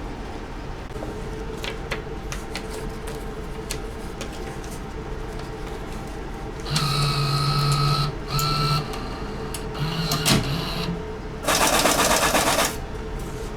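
Steady hum of a ferry under way, with scattered clicks. Partway through, a small machine whirs in a few short bursts, then a brief loud rush of noise comes near the end.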